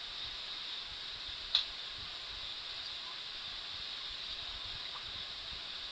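Steady high-pitched hiss with a faint constant whine above it, broken by a single sharp click about a second and a half in.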